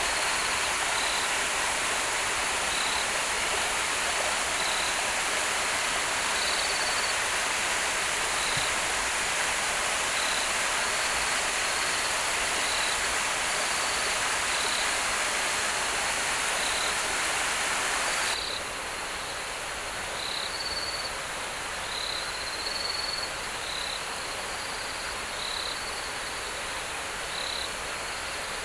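Steady rushing water with insects chirping in short, high, repeated calls. About 18 seconds in the rushing drops suddenly, leaving the insect calls clearer.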